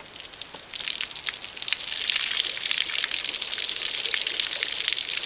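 Water pouring out of a tipped plastic gallon milk jug and splashing below. The pour builds from about a second in and is full and steady from about two seconds on.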